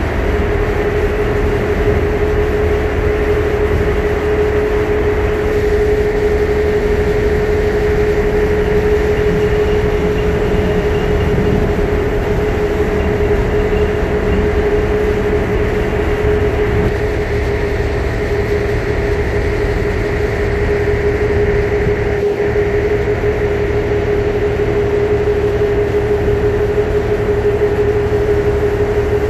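A pilot boat's engines running steadily underway: a constant heavy drone with a steady whine held at one pitch.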